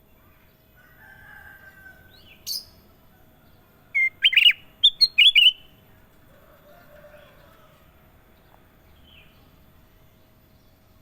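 Kutilang emas, a bulbul, singing: a short sharp note about two and a half seconds in, then a loud burst of quick, bending whistled notes over about a second and a half, with fainter calls around it.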